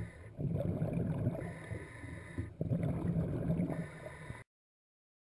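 Scuba diver breathing through a regulator underwater: two loud bubbly exhalations about two seconds apart, with the quieter hiss of inhaling between them. The sound cuts off suddenly near the end.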